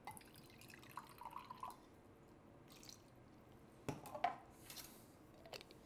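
Apple cider vinegar poured from a small glass into a blender container: a faint trickle about a second in, then a couple of light clicks near four seconds as the glass is set down on the counter.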